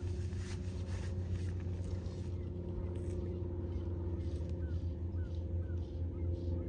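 Steady low engine hum with a few short, faint bird chirps in the second half.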